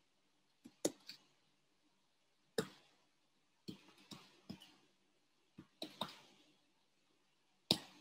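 Key presses: about a dozen short, sharp clicks at irregular spacing, the loudest one near the end.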